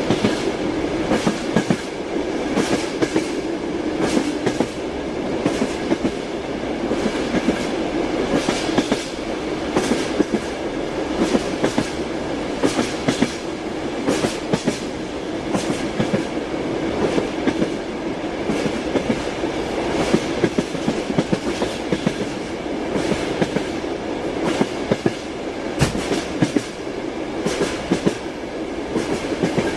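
Train wheels clacking over rail joints as a railway car runs along the track, a steady rumble with frequent sharp knocks.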